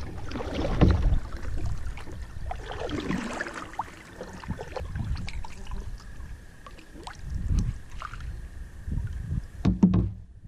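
Wooden canoe paddle strokes in lake water: a splash and swirl with each slow stroke, a few seconds apart, with a couple of sharp knocks near the end.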